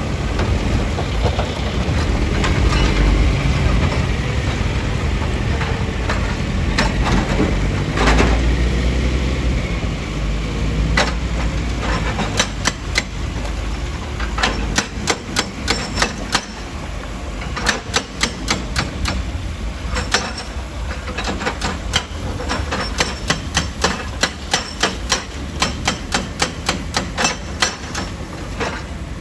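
Heavy quarry machinery: a diesel engine running with a deep rumble, then, from about twelve seconds in, many sharp irregular knocks and clatters of rock striking steel, coming in quick clusters.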